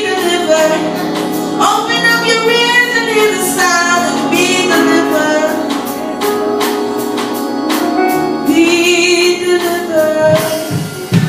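A woman singing a gospel worship song, her voice wavering on long held notes, over instrumental accompaniment with a regular percussion beat.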